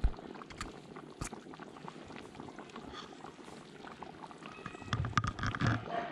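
Thick fish curry bubbling and simmering in a large uruli, a steady crackling bubble with small pops. A sharp thump comes right at the start, and a few ringing metal clanks follow about five seconds in.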